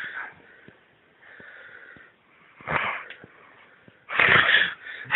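Breathy, wheezing sounds from a person in a few short bursts, the loudest near the end.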